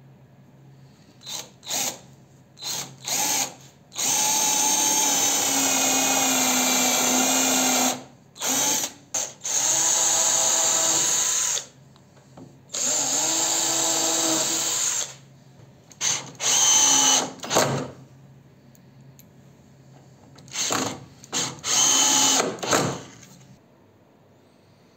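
Cordless drill driving screws into pine boards: a series of short spurts and longer whirring runs, the motor's pitch dropping slightly during the longer runs as the screws are driven home.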